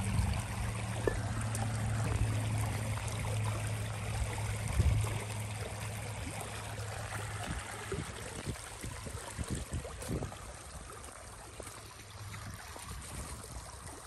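Shallow spring-fed creek trickling steadily over sand and stones.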